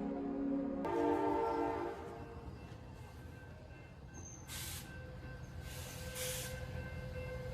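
Train horn sounding a held chord that stops about two seconds in, then the low rumble of a train with three short bursts of hiss.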